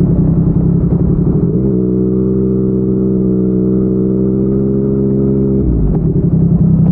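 Yamaha MT-09's inline three-cylinder engine through a Yoshimura R55 slip-on exhaust. After a rough first second or so, it holds a steady, even note for about four seconds, then turns rougher and a little louder near the end.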